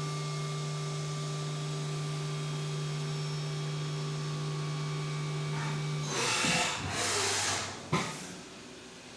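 Haas UMC 750 SS five-axis CNC mill running a 1/4" end mill through the cutoff, dry without coolant: a steady machine hum with a constant whine. About six seconds in the hum stops, and two bursts of hiss follow, then a sharp click near the end.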